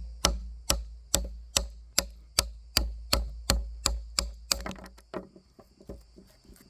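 Batoning a Kizer Bugai folding knife: a baton strikes the knife's spine, driving the blade through wood in sharp, even blows about two a second. Near the end the blows turn lighter and quicker, then stop.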